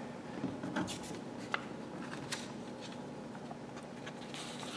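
A paper sheet being handled and laid down on a table: soft rustling with a few faint light taps.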